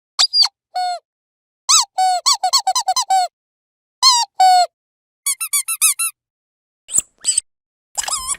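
Dog's rubber squeaky toy being squeezed: short squeaks that bend up and down in pitch, coming in clusters, with a fast run of about eight squeaks near the middle and dead silence between the clusters.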